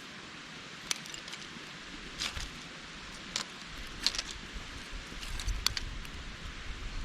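A mountain stream running steadily, with about five short scratchy strokes of a pumice stone rasping on the skin side of a dried fur pelt, sanding the hide to soften it in the last stage of tanning. A low rumble of wind on the microphone comes near the end.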